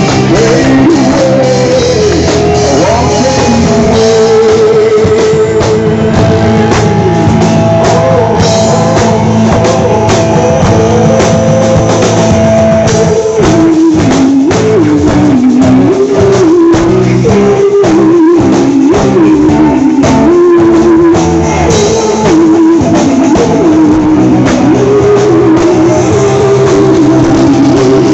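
Rock band playing live, recorded loud and close to the stage: electric bass, drum kit and guitar, with singing. The drumming grows busier about halfway through.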